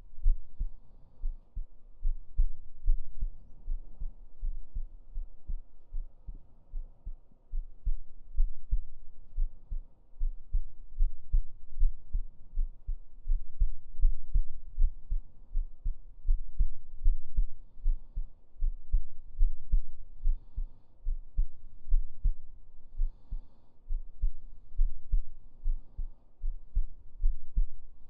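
A person's heartbeat heard up close, low thumps in a steady, even rhythm.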